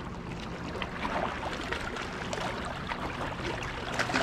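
Choppy lake water lapping and splashing against a rocky shoreline, a steady wash with scattered small splashes, over a faint low rumble.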